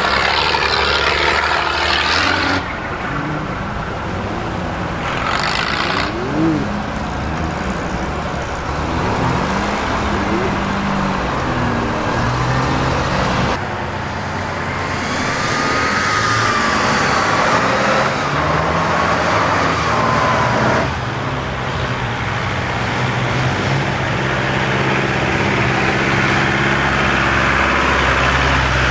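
Off-road vehicle engines running under load on a muddy track: first a Mercedes-Benz Unimog fire tender pulling up a slope, with short bursts of hissing near the start and about five seconds in; then, after a change about halfway through, other old off-road vehicle engines running steadily, with a faint wavering whine for a few seconds.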